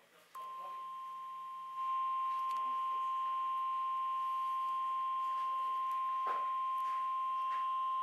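NOAA Weather Radio 1050 Hz warning alarm tone, the signal that a warning follows, played through a Midland weather alert radio's speaker. It is one steady unbroken tone that starts just after the beginning and gets louder about two seconds in.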